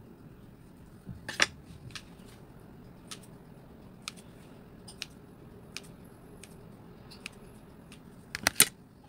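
Scissors snipping into bread dough rolls on a metal baking tray, heard as scattered sharp clicks of the blades. One loud click comes about a second and a half in, and a loud quick cluster comes near the end.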